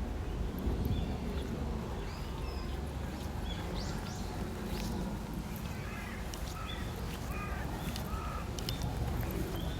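Wild birds calling in woodland: many short chirps and whistles, overlapping, over a low steady rumble.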